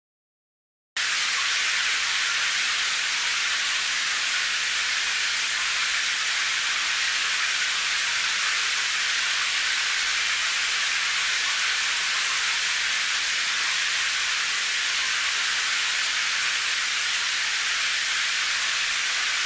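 Steady, even hiss of a rain sound effect, cutting in abruptly about a second in, with no separate drops or splashes standing out.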